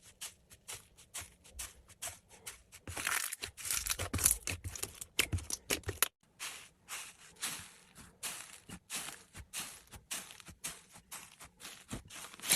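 Slime being squeezed and poked by hand: a quick, irregular run of small clicks and crackles, thickest about three to six seconds in.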